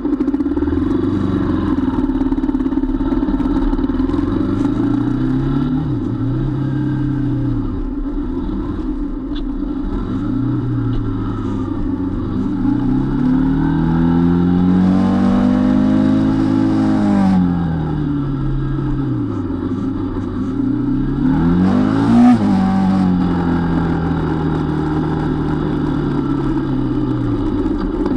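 Small motorcycle engine pulling away and picking up speed, its pitch climbing and dropping several times as it revs and eases off, with a longer rise and fall near the middle. A short, louder burst comes a little past two-thirds of the way through.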